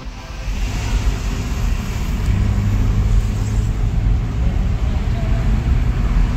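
Steady road noise from inside a moving car at speed: low engine and tyre rumble with a hiss of tyres on the road.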